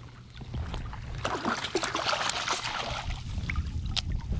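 Hooked redfish thrashing and splashing at the water's surface as it is brought into a landing net, with irregular splashes and sloshing water.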